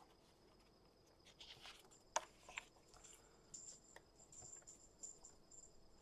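Faint handling of cardstock on a plastic scoring board: a few soft taps and scrapes as the paper is slid and laid in place, with a faint high intermittent chirping in the background.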